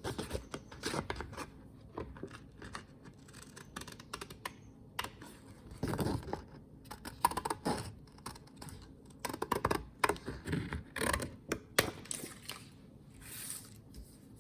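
Scissors snipping through thick printed paper in short, irregular cuts, with some paper scraping and rustling.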